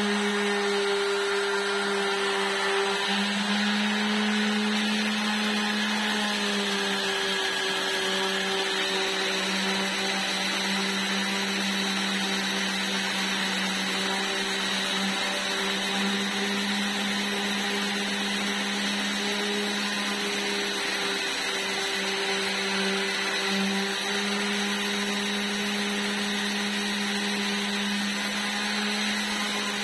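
Electric random orbital sander running continuously on a wooden board: a steady motor hum with the rasp of sandpaper on wood, its pitch wavering slightly as it is moved and pressed.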